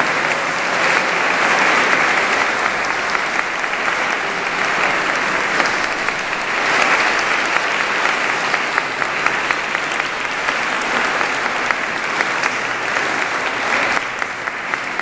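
Audience applauding steadily, many hands clapping at once, easing slightly near the end.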